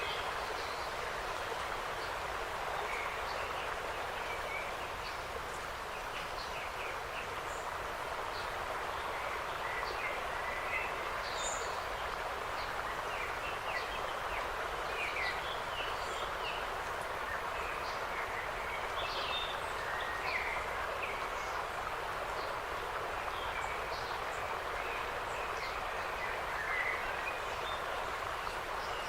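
Autumn forest ambience: a steady rushing hiss of wind in the trees with many short, scattered bird chirps and calls over it.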